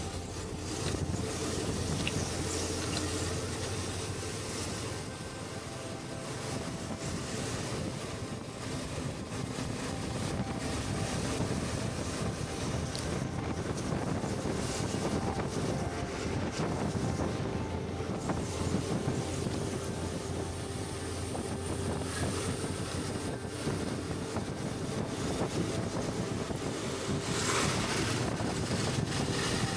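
Wind rushing over the microphone of a Suzuki V-Strom 650 motorcycle at cruising speed, with the bike's V-twin engine running steadily underneath, muffled. One brief louder gust comes near the end.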